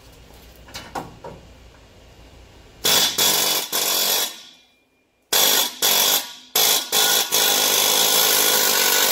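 Pneumatic air hammer firing in rapid bursts against a rusted, seized torsion bar in a Chevy/GMC truck's lower control arm: a short burst about three seconds in, then a longer run with brief breaks from about five seconds in. A few light knocks come first as the bit is set against the metal.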